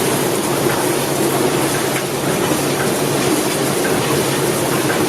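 Industrial wire-processing machine running steadily: a loud, even mechanical din with a constant low hum and faint irregular clicks.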